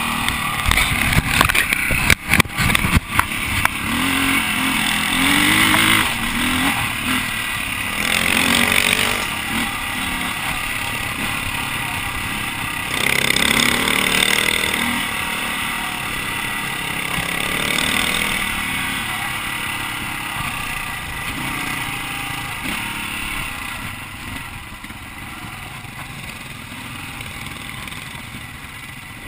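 Dirt bike engine running under way, revving up and down, with a string of sharp knocks about two to three seconds in. The engine sound grows fainter toward the end.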